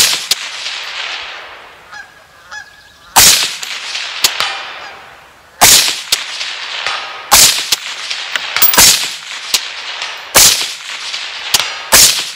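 Rifle shots from a gas-piston AR-15 in 5.56 NATO, fired semi-automatic at a slow steady pace: six sharp cracks about one and a half to two and a half seconds apart, each with a short echo trailing off.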